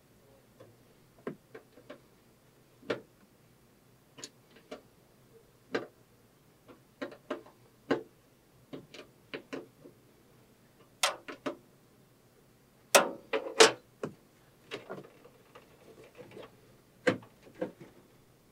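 Irregular small clicks and ticks of SMA antenna cable connectors being threaded onto a router's ports by hand and snugged with a small wrench; the loudest cluster of clicks comes about two-thirds of the way through.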